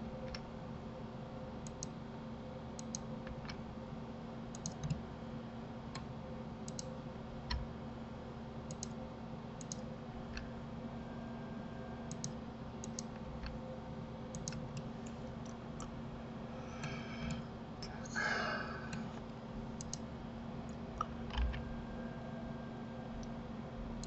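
Computer mouse clicks, single and in quick pairs, at irregular intervals over a steady low hum. About two-thirds of the way through comes a brief squeaky, whining sound.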